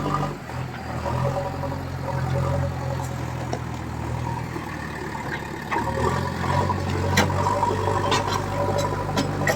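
JCB 3DX backhoe loader's diesel engine running steadily, its pitch stepping up about six seconds in, with a few sharp knocks near the end.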